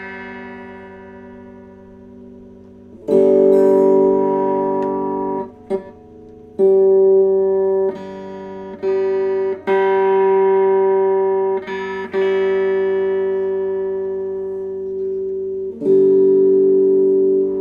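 Electric guitar with P90 single-coil pickups, an Epiphone Wilshire P90 Reissue, played through a tube amp. The same chord is strummed about six or seven times and left to ring each time while the tone knob is turned, so the treble comes and goes.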